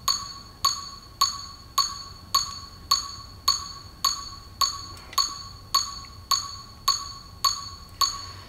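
Metronome clicking steadily at about 105 beats a minute, each click a short, bright wood-block-like tick.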